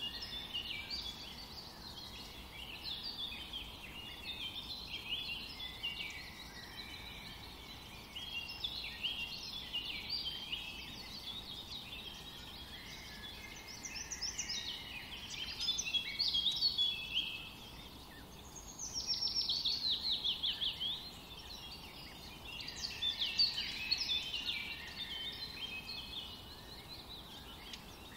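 Birdsong: many small birds chirping and singing in short overlapping high phrases over a faint steady background, with a fast trill of rapidly repeated notes about two-thirds of the way through.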